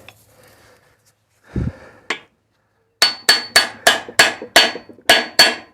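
A hammer strikes steel in a quick, even run of about ten ringing blows, roughly four a second, starting about three seconds in. Before that there is a single dull thud and a sharp click.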